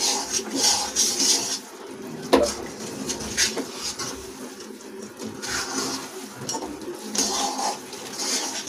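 Spatula scraping and stirring a thick besan-and-ghee Mysore pak mixture in a metal kadhai as it roasts, in repeated strokes that come quickly at first and then slow, with one sharp knock against the pan about two seconds in.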